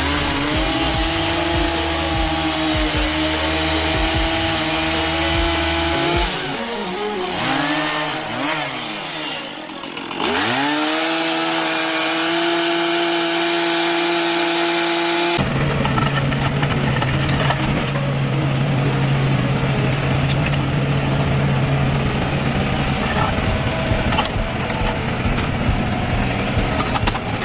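Chainsaw engine running at high revs. About six seconds in, the pitch drops and swings up and down, then it settles back to a steady high whine. About halfway through, this cuts abruptly to a different machine with a lower, steady drone.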